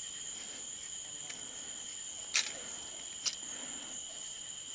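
Insects calling steadily in two even high-pitched tones, with two small sharp clicks from hands handling a hook and leader about halfway through.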